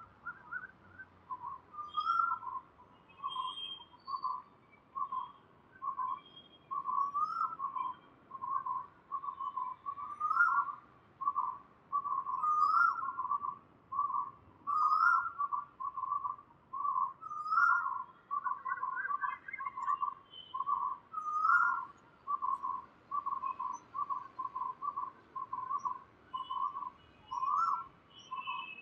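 A quick, steady run of clear whistling notes, about two a second, in short repeating phrases that each end on a slightly higher note, with faint high chirps above them.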